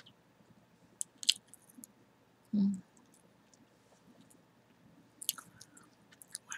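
Chewing gum close to the microphone: scattered mouth clicks about a second in and again around five seconds, with a single soft low thump between them.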